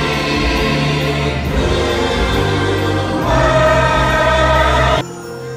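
A stage-musical cast singing together over a full musical accompaniment, loud and sustained. About five seconds in it drops suddenly to a quieter musical passage.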